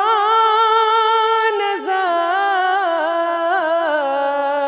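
A man singing a Pashto naat without words in this stretch, drawing out one long note. From about halfway the note wavers in ornamental turns and steps down in pitch.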